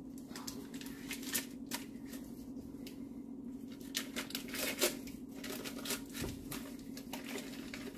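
Cream cheese block's wrapper crinkling, rustling and tearing in irregular bursts as it is pulled open by hand, busiest in the second half. A steady low hum runs underneath.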